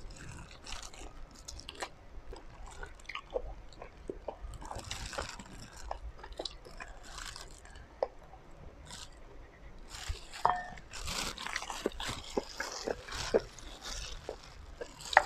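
Close-up eating sounds of a person biting into and chewing steamed chicken: wet mouth clicks and smacks. Near the end, plastic-gloved hands pull the chicken apart.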